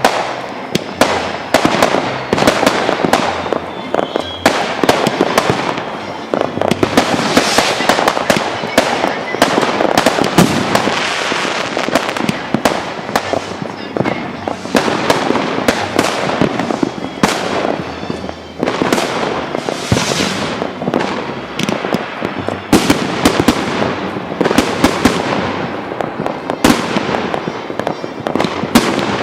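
Fireworks and firecrackers going off in a dense, near-continuous barrage: rapid bangs and crackling with hardly a pause.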